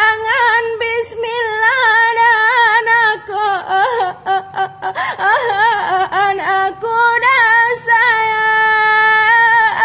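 A woman singing a lagam Alas, the traditional vocal song of the Alas people, unaccompanied. The melody is heavily ornamented and wavering, and she holds one long steady note near the end.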